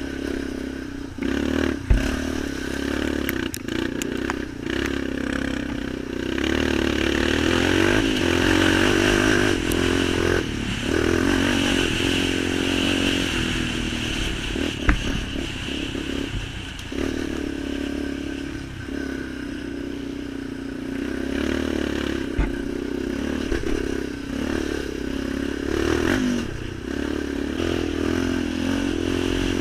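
Off-road vehicle engine running while riding, its pitch rising and falling with the throttle, over steady clattering and rattling, with a few sharp knocks.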